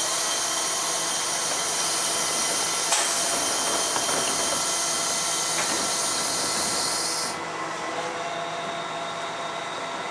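Iveco Acco rear-loader garbage truck at work: a loud, steady hiss that cuts off sharply about seven seconds in, over the truck's running engine and a steady whine, with a single knock about three seconds in.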